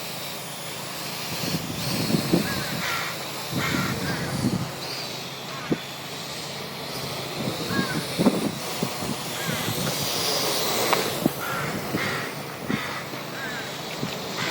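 Strong wind buffeting the microphone in gusts, under the thin whine of a quadcopter drone's motors rising and falling in pitch. Short harsh calls break in several times, in clusters.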